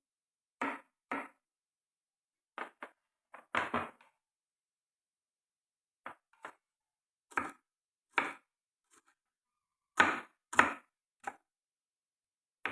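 Knife chopping food on a cutting board: about a dozen separate cuts at uneven intervals, often in pairs, with silence between them.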